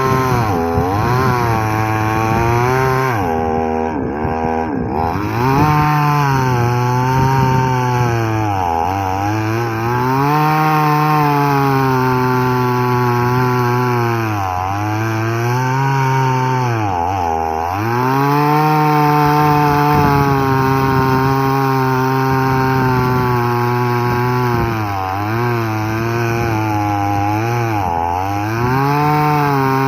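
6000-model two-stroke chainsaw running at full throttle while cutting wood, its pitch dipping and recovering about five times as the chain bogs down under load in the cut.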